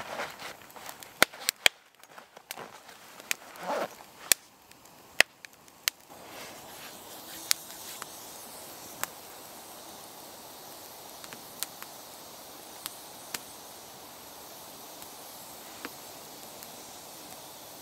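Wood campfire crackling, with sharp irregular pops and snaps of burning sticks. From about six seconds in a steady hiss sits under fewer, scattered pops.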